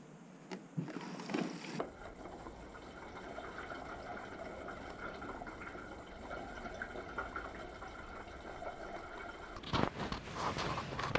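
Petrol pouring steadily from an upturned plastic bottle into a motorcycle's fuel tank, with a few sharp knocks near the end.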